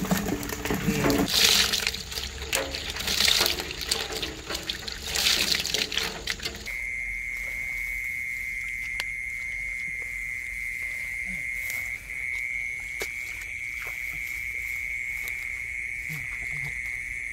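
Live climbing perch poured from a bucket into a metal pot, splashing and flapping in shallow water in three noisy bursts. After a sudden cut about six and a half seconds in, a steady high-pitched insect trill runs on, with a few faint knocks.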